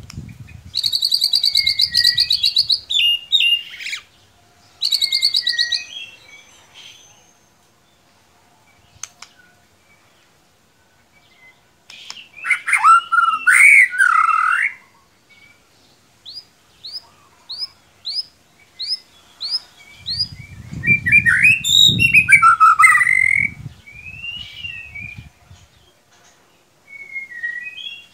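White-rumped shama (murai batu) song used as a lure recording: separate phrases of buzzy trills, loud rich whistles and a quick run of about eight short rising notes, with pauses between. A low rumble sits under the loudest phrase about two-thirds of the way through.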